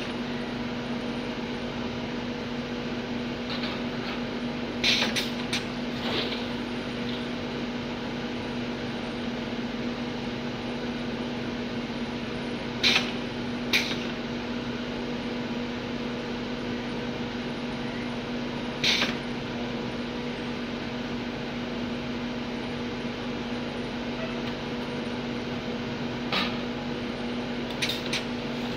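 Bottle-filling machine and conveyor running with a steady hum, broken by a few sharp clicks and knocks as plastic bottles are set in place and moved.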